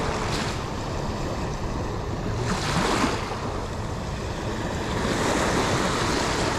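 Sea surf washing onto a sandy shallow shore, swelling twice, with a low wind rumble on the microphone.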